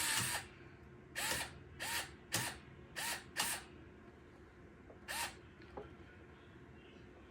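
Fanttik cordless electric screwdriver driving the fan-grille screws in short, gentle pulses rather than at full power, to keep the screws from stripping. A longer run stops just after the start, then come about six quick bursts of the motor whining up and down, and a small click near the end.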